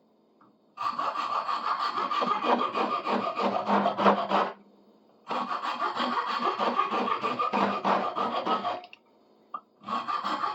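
A hand tool working wood in rapid back-and-forth strokes, in three bouts of about three and a half seconds with short pauses between.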